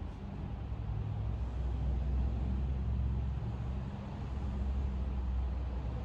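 Low, steady rumble of a motor vehicle engine running, swelling a little about a second in and easing near the end.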